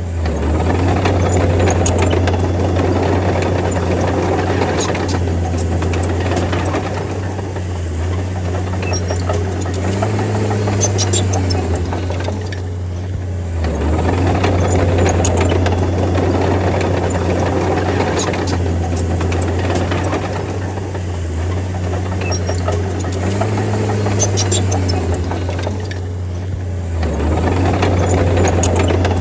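Crawler bulldozer's diesel engine working steadily under load. Its level dips and swells in repeating cycles, with a brief rise in engine pitch about ten and again about twenty-three seconds in. Light metallic clicking and rattling sits over the engine.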